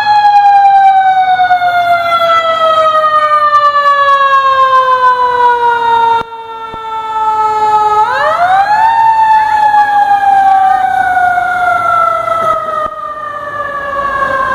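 Fire engine siren wailing loudly, its pitch sinking slowly for about eight seconds, then climbing quickly back up about eight seconds in and sinking slowly again.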